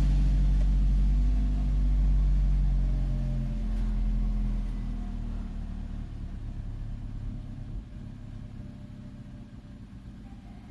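Maruti Suzuki Ritz automatic running on a cold start, with a loud low grinding hum that dies away over about four to eight seconds, leaving a quieter steady idle.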